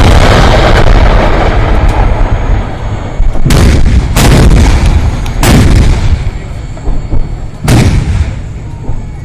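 Artillery guns firing: a long rolling rumble, then four sharp shots between about three and eight seconds in, each trailing off in a rumbling echo.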